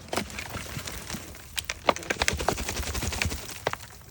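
Digging and rummaging through soil to get potatoes out, with an irregular run of sharp crackles and clicks.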